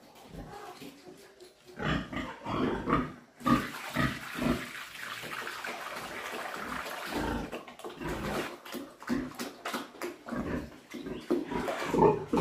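Sows grunting over and over, louder and quicker near the end. Around the middle, wet mash sloshes as it is tipped from a bucket into a concrete trough.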